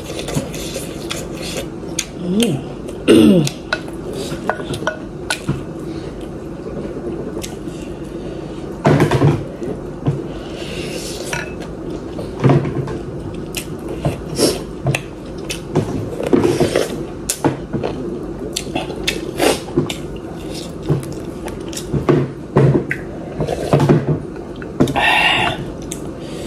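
A wooden spoon knocking and scraping against a glass bowl of soup in irregular clicks, with close-up eating sounds between them, over a steady low hum.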